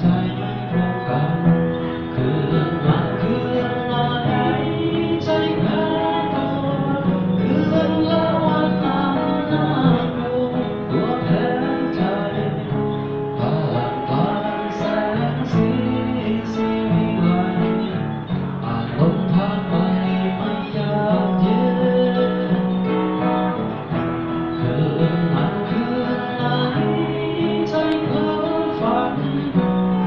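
Acoustic guitar strummed, with a man singing a Thai song over it.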